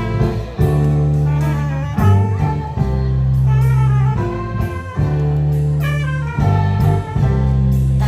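Instrumental music: melody notes held over a strong, steady bass line, changing about every second.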